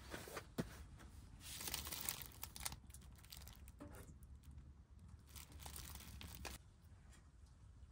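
Packaging crinkling and tearing in two spells, about a second and a half in and again about five seconds in, with a few light clicks and knocks between.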